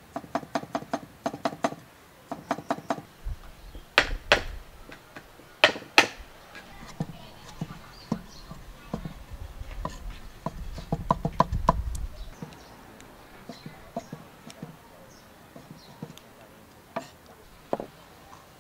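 Cleaver chopping on a wooden stump chopping block: quick runs of knocks as carrot and mushrooms are cut, with a few louder single chops in between and sparser light taps near the end.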